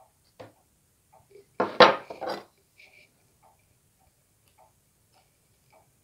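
Faint, irregular metal-on-metal ticks from dividers working against a laser-cut steel locomotive frame plate. About two seconds in, a short, loud clatter as the steel frame plates knock together while being handled.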